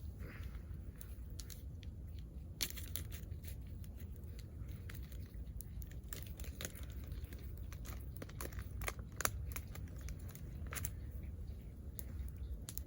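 Sausage packaging being cut and torn open with a knife: crinkling and tearing with scattered sharp clicks, two of them louder than the rest.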